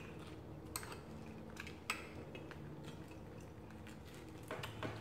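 Metal fork and knife clicking against a plate while cutting a piece of fried cod: about six light clicks, two close together in the first two seconds and two more near the end, over a faint steady hum.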